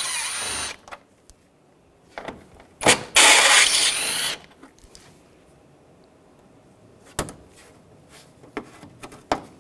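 Metabo 18 V cordless impact driver with a 10 mm socket hammering bolts loose in two bursts: a short one at the start and a longer, louder one about three seconds in. A few sharp clicks follow as the tool and loosened bolts are handled.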